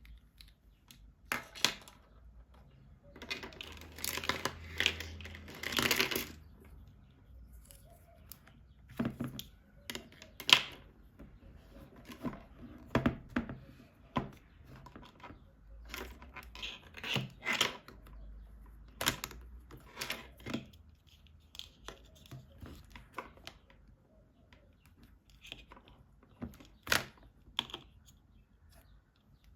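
Plastic toys and their packaging being handled: scattered sharp clicks and taps of small plastic pieces, with a few seconds of crinkling and tearing packaging about three to six seconds in.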